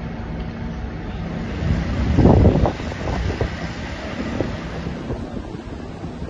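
Wind buffeting a phone microphone over a low vehicle engine hum, with a brief louder swell about two seconds in.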